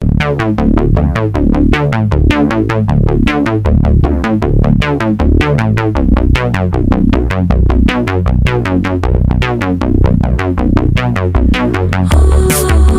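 Electronic background music: quick repeating synthesizer notes over a heavy bass line, with drums and cymbals coming in about twelve seconds in.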